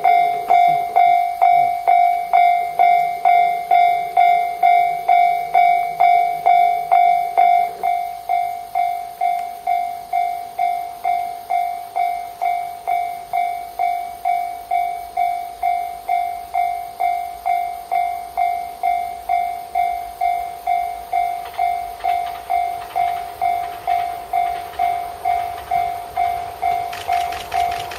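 Japanese level-crossing warning bell ringing steadily, about two electronic dings a second, dropping in volume about seven seconds in. Near the end, the noise of the approaching limited express train rises under the bell.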